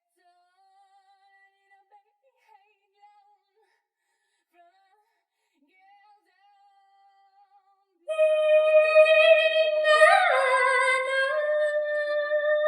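Isolated female backing vocals separated out by an a cappella extractor. For the first eight seconds or so there are only faint, thin traces of voice, then one long held sung note that dips in pitch about ten seconds in and carries on to the end.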